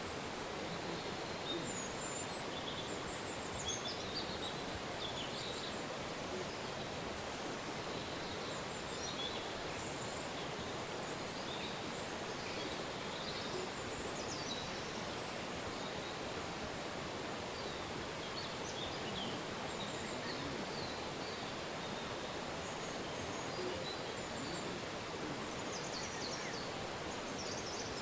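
A river flowing steadily, with many small birds chirping and calling over it.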